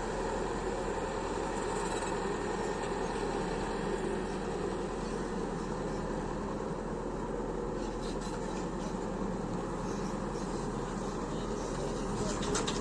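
Combine harvester running steadily while harvesting wheat: a constant machine drone with an even mechanical hum. A few short rattles come near the end.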